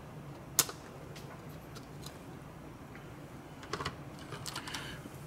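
Sprue cutters snipping through a small plastic piece, one sharp click about half a second in, followed by a few light clicks and taps of plastic parts being handled.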